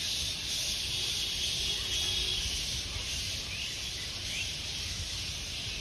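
A roost of flying foxes (large fruit bats) screeching in the trees: a dense, steady, high-pitched chorus of calls, with a few faint chirps standing out.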